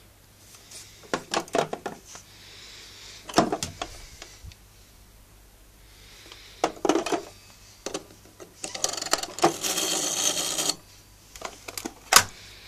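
Old BT telephones being handled: a scatter of hard plastic clicks and knocks, about two seconds of continuous whirring rattle in the second half, and one sharp click near the end.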